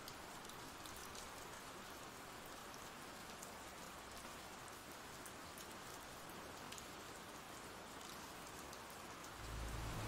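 Rain sound effect used as an ambient background: a faint, steady hiss of rain with scattered drops pattering. A low rumble comes in near the end.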